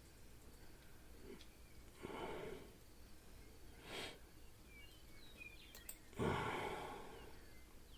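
A man breathing heavily into a close microphone, three breaths: a long one about two seconds in, a short sharp one at four seconds, and the loudest, a long exhale just after six seconds.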